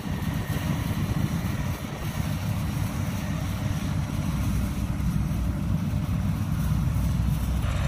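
Yanmar AW82V combine harvester running steadily as it works, a constant low engine drone with no change in speed.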